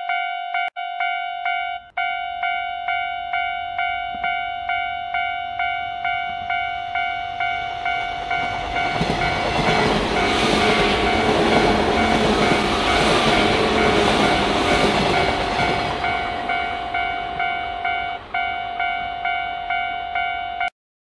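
Japanese level-crossing warning bell ringing in a steady repeating ding, about twice a second. An electric train passes through from about eight to sixteen seconds in, its rumble and wheel clatter (gatan-goton) rising and then fading. The bell cuts off suddenly near the end.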